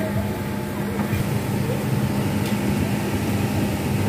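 A steady low machine hum, one constant tone over a rumble beneath.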